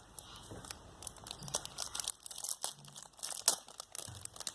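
Packaging crinkling and tearing in quick, irregular crackles as a new gadget is unwrapped.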